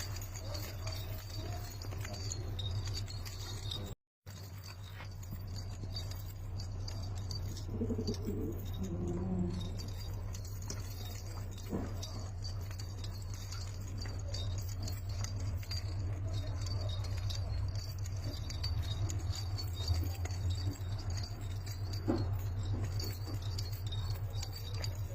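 Domestic pigeons cooing, a few coos clearest about eight to ten seconds in, over a steady low hum. The sound cuts out completely for a moment about four seconds in.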